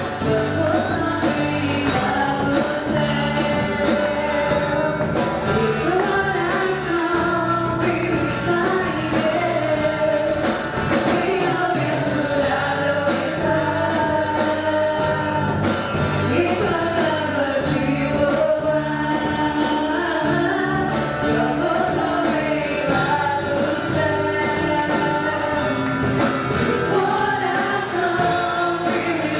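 Gospel song sung by a choir of mostly women's voices, with a band playing a steady beat underneath.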